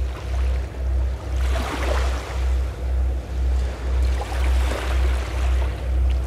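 Sea waves washing in twice, about two seconds apart, over a deep, even throb pulsing about twice a second.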